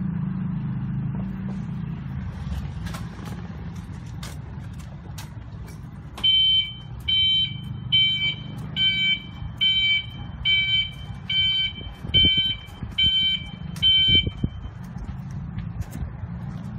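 Open-sided electric campus shuttle running with low motor and road noise and a few rattles. From about six seconds in, a high electronic warning beeper sounds about eleven times, one beep every 0.8 seconds, then stops.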